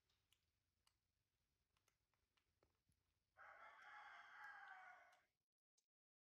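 Faint scattered clicks, then about three seconds in a single drawn-out animal call lasting about two seconds, after which the sound cuts off abruptly.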